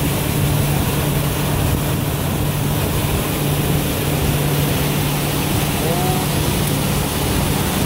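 Pontoon boat's motor running steadily at cruising speed, a constant low hum under the rush of wind and water as the boat moves across the lake.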